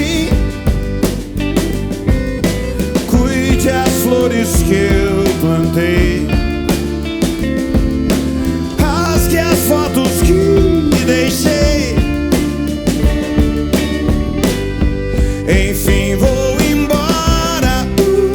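Rock band playing live: drums keeping a steady beat under bass, guitar and a melodic lead line, with no words the recogniser could pick out.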